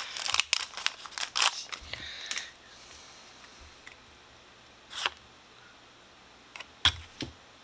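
Foil booster-pack wrapper crinkling as it is opened for the first two seconds or so, then a few single sharp clicks as the cards are handled.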